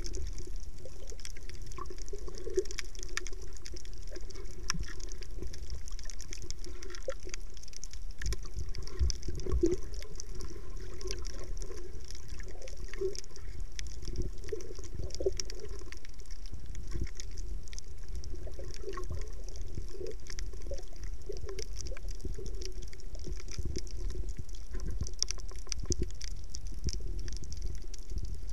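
Underwater ambience on a coral reef: a steady low rumble of moving water with faint, continuous crackling and clicking throughout.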